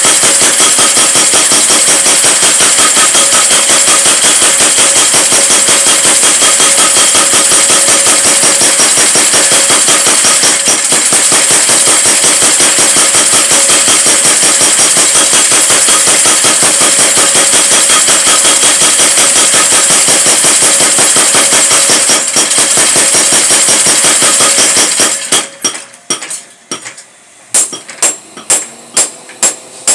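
Power hammer pounding in a fast, continuous run of blows with a metallic ring. About 25 seconds in it breaks off, then strikes separately at about two to three blows a second.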